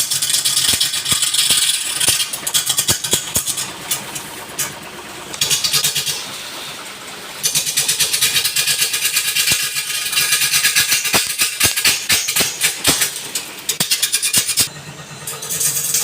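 Wood lathe running while a turning tool cuts the spinning wood: a loud, rattling scrape and hiss that comes in passes, easing off a few times and picking up again.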